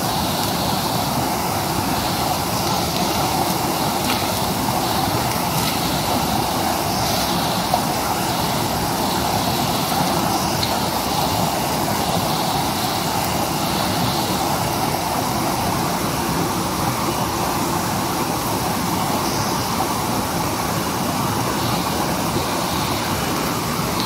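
Steady rushing of a mountain stream running over rocks, with now and then a light crinkle of plastic wrap being pulled off a metal grill grate.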